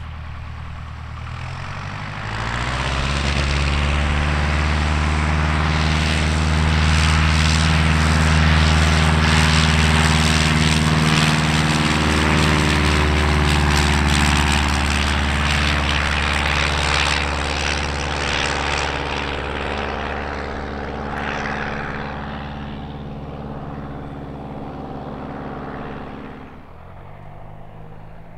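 Piper Cub's piston engine and propeller on take-off: the engine opens up to full power about two seconds in with a rise in pitch. It holds a steady, loud drone through the take-off run and lift-off, then slowly fades as the plane climbs away. Near the end the sound drops suddenly to a second, quieter light-aircraft engine.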